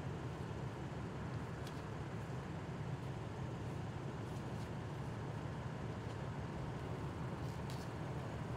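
Steady low rumble of idling emergency vehicle engines, with a few faint clicks.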